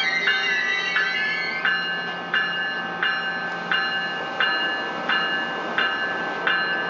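NJ Transit MultiLevel railcar's door chime dinging over and over, about once every 0.7 seconds, typical of the warning before the doors close, over the steady hum of the standing train.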